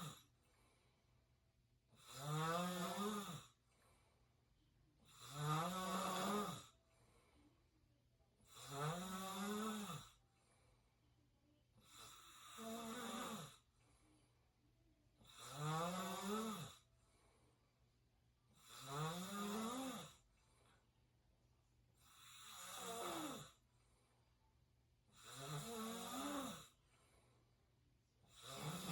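A person snoring through an open mouth, one pitched snore about every three seconds, each lasting over a second, with its pitch rising then falling and quiet between snores.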